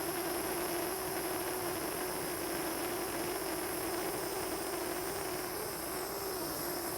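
Gas soldering torch burning with a steady hiss, its flame held on a silver ring to flow hard solder into a seam.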